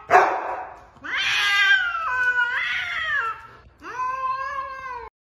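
Domestic cat in a standoff with another cat: a short hiss, then two long, wavering threat yowls, the first stepping up and down in pitch, the second shorter. The sound cuts off abruptly near the end.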